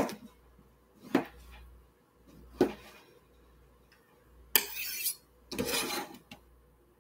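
Chef's knife cutting papaya on a cutting board: three sharp knocks of the blade on the board about a second and a half apart, then two longer scraping sounds as the blade slides across the board near the end.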